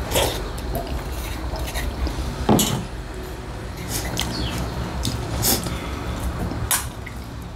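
Close-up eating sounds: wet chewing and lip-smacking from food eaten by hand, with scattered clicks and scrapes of brass plates and bowls and one louder knock about two and a half seconds in, over a steady low hum.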